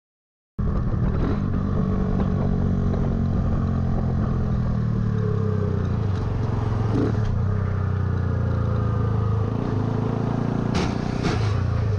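Silence, then from about half a second in a motorcycle engine running steadily at highway cruising speed, under wind and road noise. The engine note shifts a little near the end, and a few sharp clicks come just before the end.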